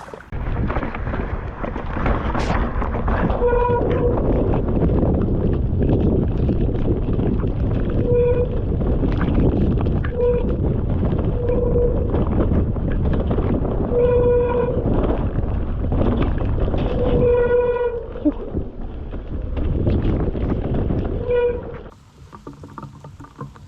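Mountain bike riding down a wet trail: a steady rumble of wind and trail noise on a rain-muffled microphone. Short pitched buzzes sound about seven times, and near the end the noise drops away suddenly.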